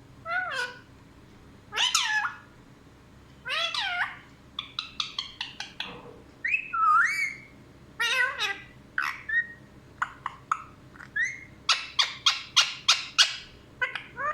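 Pet parrot vocalising: a string of drawn-out calls that slide up and down in pitch, like meows or whistles. Quick runs of short, sharp chirps come once in the middle and again near the end.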